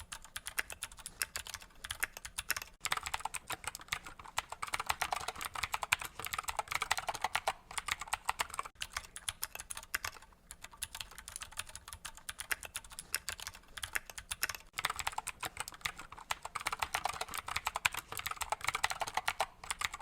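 Fast continuous typing on mechanical keyboards fitted with clicky Gateron Blue switches, a Keychron K2 with a plastic case and a Keychron Q3 with a metal gasket-mount case heard in turn, with brief pauses between passages.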